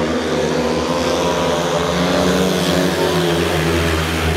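Several 500 cc single-cylinder speedway motorcycles racing together round a dirt track, their engines running hard in a steady mix of pitches.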